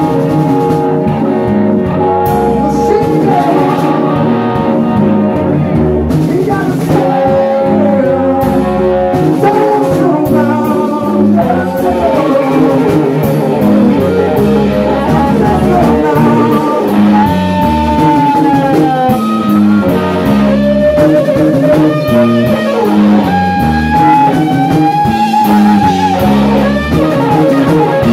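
Live blues-rock band playing: an electric guitar leads with long, bending, sustained notes over drums and bass guitar.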